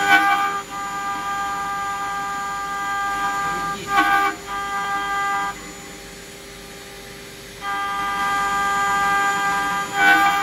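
CNC router spindle with its end mill cutting a metal block, giving a steady high-pitched whining squeal. The squeal drops out for about two seconds a little past halfway, leaving a lower hum, then returns. Short louder bursts come at the start, about four seconds in and near the end.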